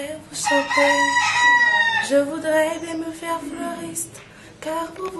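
A woman singing unaccompanied in held, slow notes, with a rooster crowing once behind her from about half a second to two seconds in.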